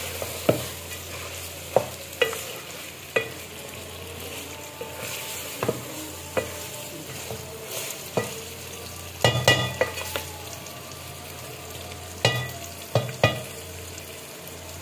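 Mutton, bitter gourd and onions sizzling in ghee in a metal pot as a wooden spoon stirs them. The spoon knocks against the pot every second or so, with a quick run of knocks about nine seconds in and another near the end.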